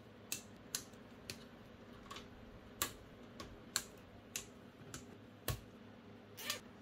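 Side cutters snipping through nylon zip ties, about ten short, sharp clicks at uneven intervals.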